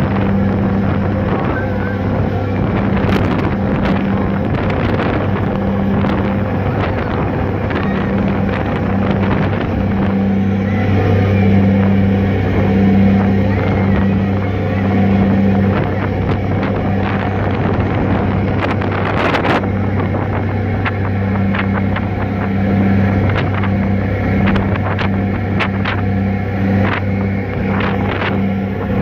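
Ferry's diesel engines droning steadily under way, a low hum with a pulsing overtone, heard on the open deck with wind buffeting the microphone.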